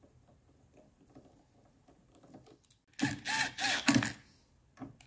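Milwaukee M12 cordless driver whirring in a few short trigger pulls about three seconds in, running a screw into the electric seat adjuster's gearbox plate, and starting again at the very end. Before that, faint clicking and scraping as the screw is started by hand with a screwdriver.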